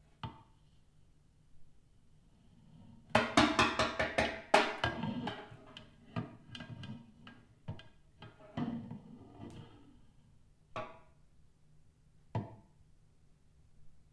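Snare drum played with a long wooden stick: a single tap, then about three seconds in a dense flurry of rapid strokes on the drum. The strokes thin into scattered knocks, and two last isolated hits come a few seconds apart near the end.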